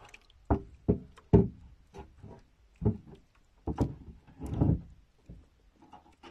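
Several irregular hollow knocks and bumps against the small boat's wooden planking, with a softer scraping rub partway through.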